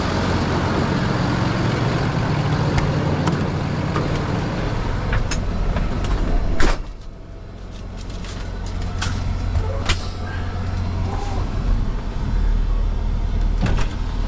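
Heavy truck's diesel engine running as the truck pulls ahead a short way. About halfway through there is a sharp burst, after which it goes quieter for a few seconds.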